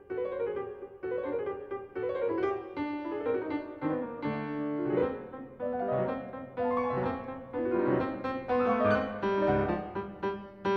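Piano music: a continuous run of notes, often several sounding together.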